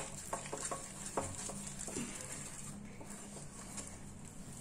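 Spatula stirring thick gooseberry paste in a pan: a few light taps and scrapes in the first two seconds, then only faint stirring.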